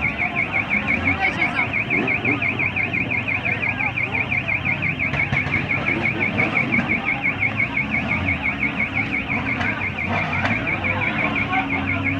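Electronic alarm siren warbling rapidly up and down, about five cycles a second, without a break, with motorcycle engines idling beneath it.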